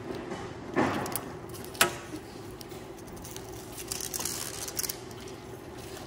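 Adhesive-backed Velcro strip being handled and pressed onto a sheet-metal plenum flange: a rustle about a second in, a sharp tap near two seconds, then lighter rustling.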